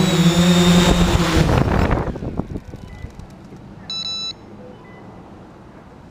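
Electric motors and propellers of a 3DR X8 coaxial octocopter running, then spinning down and stopping about two seconds in as it sets down. A short electronic beep sounds about four seconds in.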